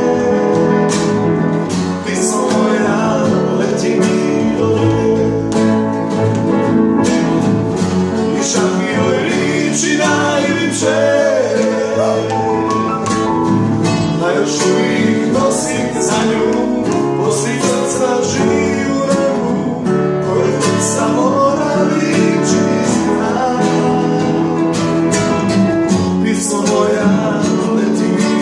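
Live acoustic trio of upright piano, double bass and nylon-string acoustic guitar playing a ballad, the guitar strummed, with a man's voice singing along in places.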